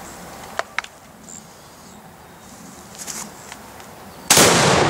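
A few light clicks and knocks of handling, then, near the end, a single very loud boom from a Mossberg 930 12-gauge semi-automatic shotgun firing birdshot at a thrown binary-explosive target, the shot and the target's detonation heard together as one blast that echoes away slowly.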